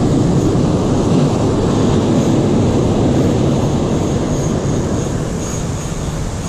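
Wind rumbling on the microphone over surf breaking and washing up the beach, easing slightly near the end.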